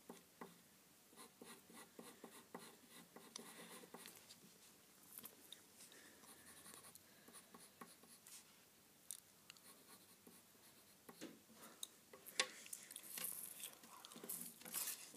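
Faint scratching of a pen or pencil drawing strokes on paper, in short irregular strokes that grow busier and louder near the end, with one sharp tap.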